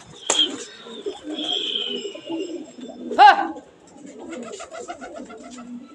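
Domestic pigeons cooing in a low, continuous murmur. A high whistle-like note runs for about a second near the start, and a short loud call comes about three seconds in.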